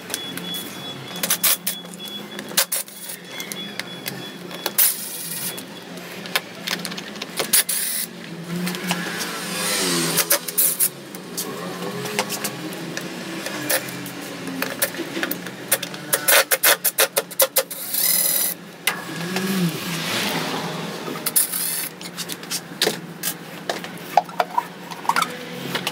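Hands working in the stripped-down engine bay of a Honda Silver Wing 600 scooter: frequent clicks, knocks and rattles of plastic covers and metal parts being handled, with stretches of scraping and rubbing, over a steady low hum.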